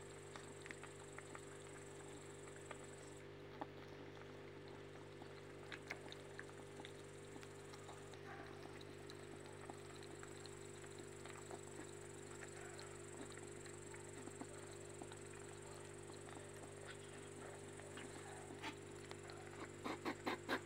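Kittens and hedgehogs eating from a shared dish: soft, irregular chewing and smacking clicks, with a quick run of louder clicks near the end, over a steady low hum.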